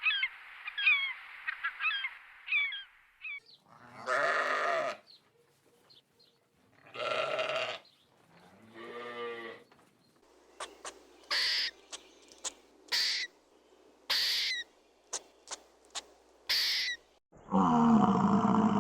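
A run of animal calls: rapid chirping for the first few seconds, then three separate drawn-out pitched calls, a string of short sharp calls, and a loud drawn-out call starting near the end.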